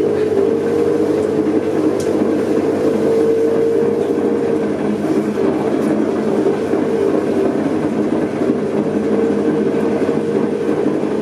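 Electric potter's wheel running steadily at speed under load while wet clay is coned up and down on it: a continuous even hum with a steady, slightly wavering whine.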